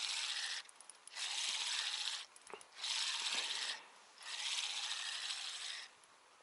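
Spinning reel being cranked to wind in line against a hooked pike, its gears whirring in four spells of about a second and a half each with short pauses between.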